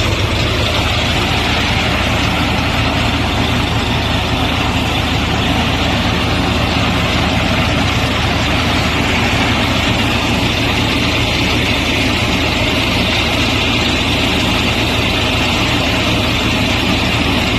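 Steady engine-like machine hum, a constant low drone with a hiss over it.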